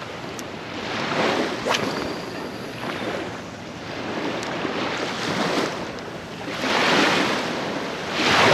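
Small waves breaking and washing up on a sandy beach, the surf swelling and fading every second or two, loudest near the end.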